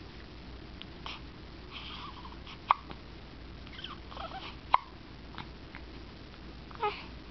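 Hiccups: two sharp hiccups about two seconds apart, with softer short breathy sounds between them and a brief falling squeak near the end.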